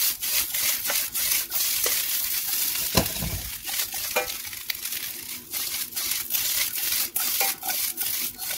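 Fried rice sizzling in a hot wok while a wooden spatula stirs it, scraping and knocking against the pan in quick repeated strokes. A dull thump about three seconds in.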